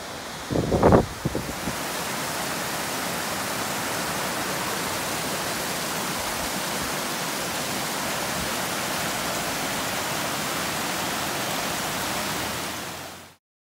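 Small mountain creek cascading over rocks: a steady rush of white water. There is a short louder burst about a second in, and the sound cuts off suddenly near the end.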